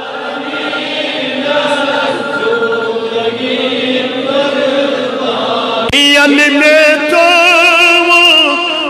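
Men's voices chanting a devotional refrain together. About six seconds in, a single man's voice cuts in, singing long held notes with heavy vibrato.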